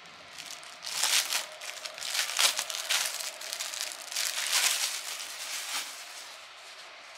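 Clear plastic wrapping crinkling in irregular bursts as a pair of terry-cloth slippers is handled and pulled out of its bag, dying away about six seconds in.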